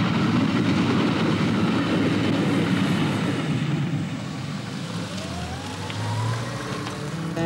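A train passing a level crossing, a loud steady rushing rumble that dies away about halfway through. Then a car's engine speeds up with a rising whine as the car moves off.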